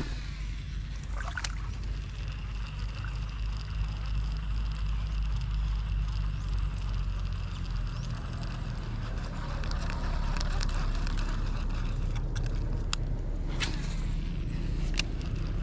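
Water sloshing and splashing over a steady low rumble, with a few sharp clicks, the loudest near the end.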